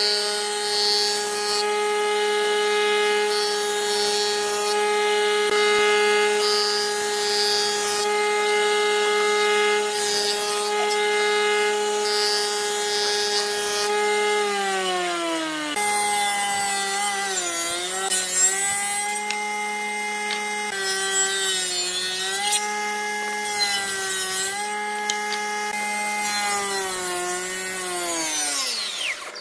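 Electric jointer running with a steady whine while its cutterhead shaves a bark-covered log. From about halfway the pitch sags and recovers several times as the motor loads up under the cuts, and near the end the pitch falls away as the machine winds down.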